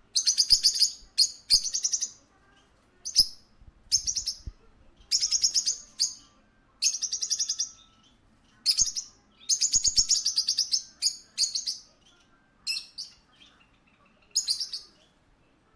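A parakeet chirping in about a dozen short bursts, each a quick run of high chirps, with brief pauses between them.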